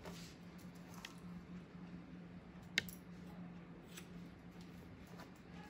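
Hair-cutting shears snipping through wet hair, a few faint sharp snips spaced a second or more apart, the sharpest about three seconds in.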